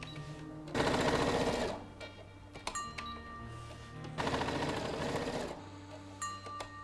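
Brother ST150HDH heavy-duty sewing machine stitching through a thick stack of 13 to 14 layers of cotton duck canvas, in two short runs of rapid needle strokes about a second long each.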